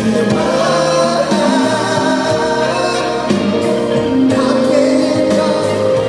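Live pop ballad performance: band accompaniment with sung vocals.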